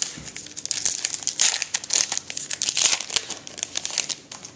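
Trading-card pack wrapper crinkling and tearing as it is opened and handled: a dense run of sharp, high crackles that thins out near the end.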